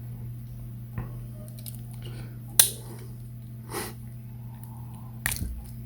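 Victorinox Forester Swiss Army Knife's tools clicking as they are handled, a few sharp clicks spread a second or more apart, over a steady low hum.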